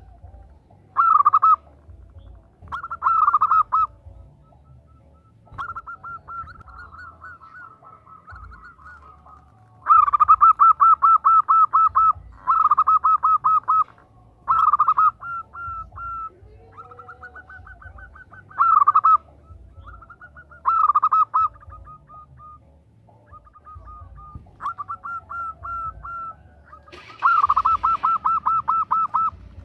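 Zebra dove (perkutut) cooing in bursts of fast, staccato pulsed notes, repeated every couple of seconds, with louder and fainter series alternating. It is a female's call to a male.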